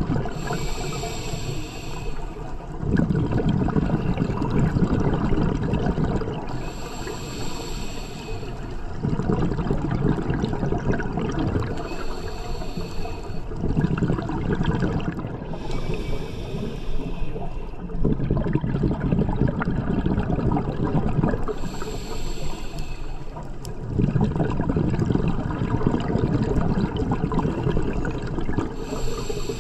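Scuba diver breathing through a regulator underwater: a hissing inhale through the regulator about every six seconds, each followed by a longer, louder rush of exhaled bubbles.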